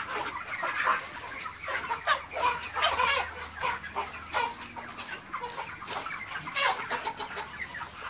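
A large flock of broiler chickens clucking, with many short calls overlapping continuously.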